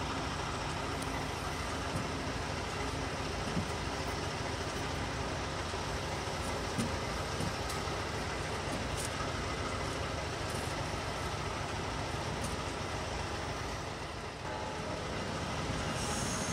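Steady rumble and hum of a standing Amtrak passenger train, its diesel locomotive idling.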